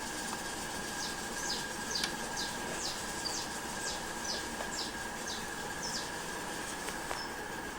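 A small bird chirping: a quick run of about a dozen high chirps, each falling in pitch, over a steady hiss with a faint high whine.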